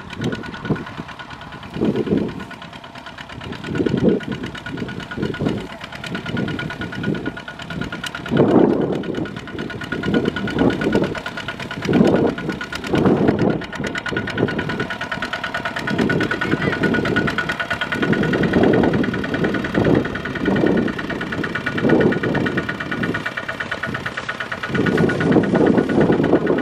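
Kubota ZT155 power tiller's single-cylinder diesel engine running with a steady chugging beat, its loudness swelling and dropping irregularly as it works through the field.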